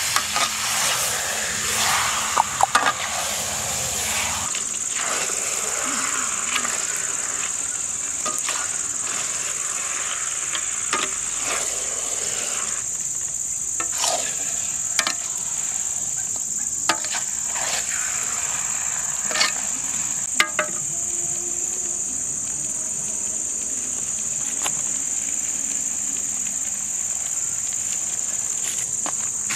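Steady high-pitched chorus of crickets and other night insects. Frying food sizzles over the first dozen seconds, and a few sharp clicks and knocks are scattered through.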